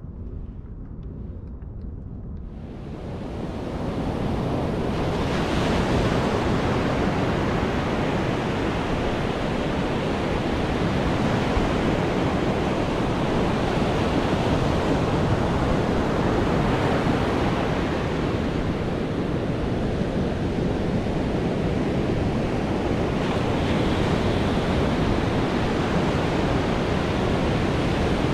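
Ocean surf breaking and washing up a sandy beach, a steady rush of waves that swells in about three seconds in after a quieter stretch of low wind and water noise.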